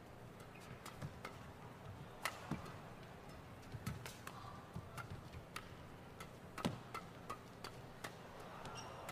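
Badminton rackets striking the shuttlecock in a fast doubles rally: a string of sharp, irregular smacks, some in quick pairs, over a faint steady hum.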